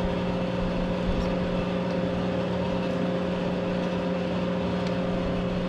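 Steady machine hum made of several constant tones at an even level, with no cutting going on, and a few faint light ticks.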